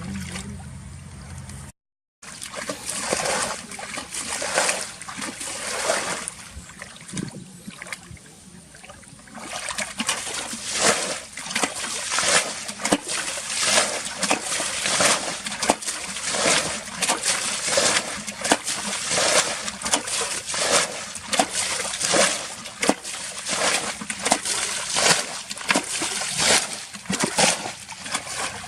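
Water splashing and sloshing in quick irregular bursts, sparse at first and then rapid and continuous from about ten seconds in. Near the start a low hum cuts off abruptly.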